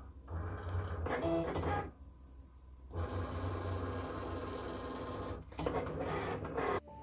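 Cricut Explore cutting machine running a cut: its motors whir as the blade carriage travels and the mat feeds, in runs with a short pause about two seconds in. The sound stops abruptly just before the end, where soft music begins.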